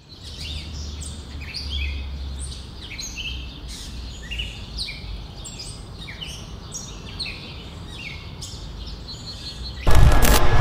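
Several birds chirping: short, high notes, many sweeping up or down, repeating every fraction of a second over a low steady rumble. About ten seconds in, a sudden loud rush of noise cuts in over them.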